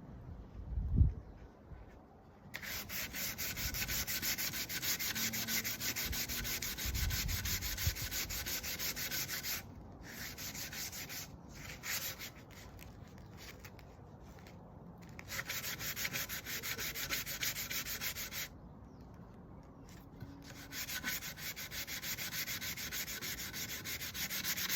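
Sandpaper rubbed by hand over a piece of wood in quick back-and-forth strokes, in runs of a few seconds with short pauses between. A dull knock about a second in.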